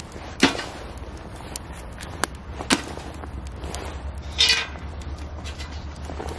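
Wood fire burning in a small cylindrical steel stove, over a steady low rumble, with a few sharp cracks and knocks as a split log is fed in through its open door. There is a short rustling scrape about four and a half seconds in.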